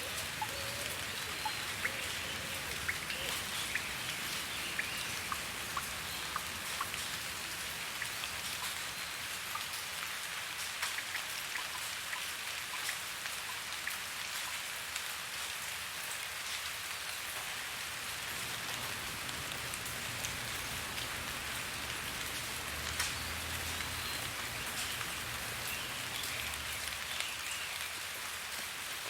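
Steady rain falling, with a constant hiss and many individual drops ticking on a surface.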